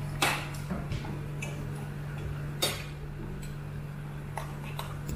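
A cooking utensil clicking and tapping against a stainless frying pan as the food in it is stirred: irregular sharp knocks, the loudest just after the start and about two and a half seconds in, with fainter taps between. A steady low hum runs underneath.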